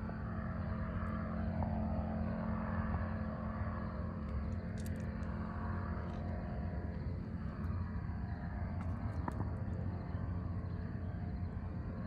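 Powered paraglider's engine and propeller droning steadily overhead.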